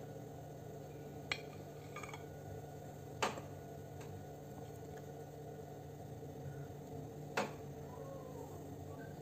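A metal knife clicks against a ceramic plate four times, the two later clicks the loudest, while cutting through soft steamed sponge cake. A steady low hum runs underneath.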